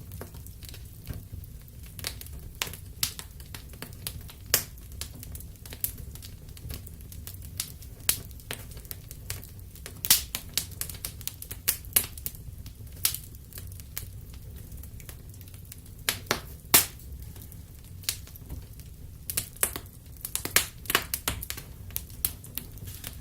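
Wood fire crackling in a fireplace: irregular sharp pops and snaps over a low, steady rumble, with thicker clusters of pops around ten seconds in and again near the end.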